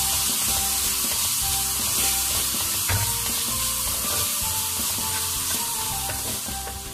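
Onion, tomato and chilli masala sizzling steadily in a steel karahi as a spatula stirs and scrapes it around the pan, with one short knock about three seconds in.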